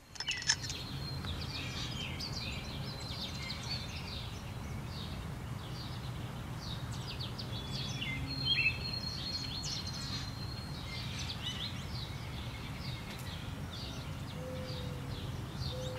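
Outdoor ambience: songbirds chirping and calling throughout over a steady low background hum, with one held high whistle in the middle.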